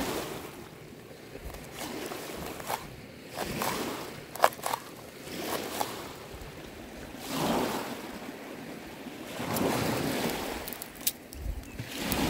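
Waves washing on a pebble shore, swelling and fading every few seconds. Over them come a few sharp taps of a knife chopping herbs on a wooden bowl, the loudest about four and a half seconds in.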